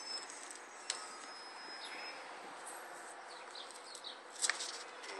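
Faint outdoor background of insects with a few short high chirps, a single click about a second in and a brief sharper sound near the end.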